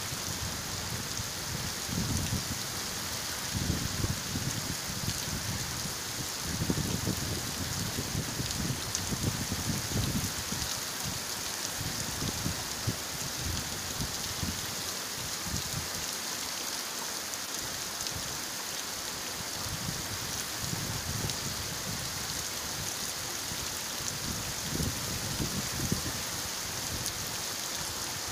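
Heavy rain pouring and splashing on a wet road: a steady, even hiss, with irregular low rumbles rising and falling every few seconds.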